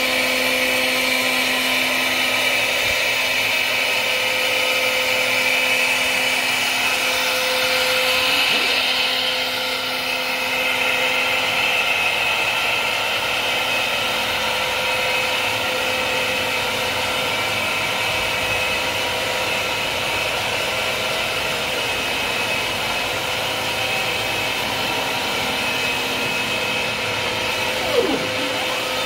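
CNC router spindle running steadily while surfacing an MDF spoilboard, with a dust-collection vacuum drawing through the hose on its dust shoe: a loud, steady high whine with several held tones. One brief louder knock comes near the end.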